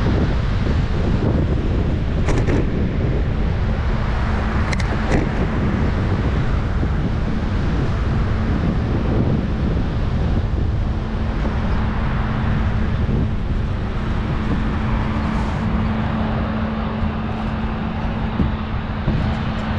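Wind buffeting a GoPro action camera's microphone during a bicycle ride, over steady road and traffic noise and a low hum. A few sharp clicks come about two and five seconds in.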